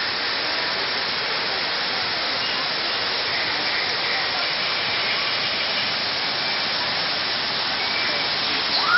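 A steady, even hiss throughout. Near the end a whistled note starts, rising sharply in pitch and then stepping higher.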